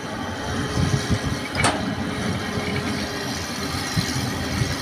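Diesel engine of a Hitachi hydraulic excavator running steadily as it works the boom and bucket, digging soil, with a single sharp knock about a second and a half in.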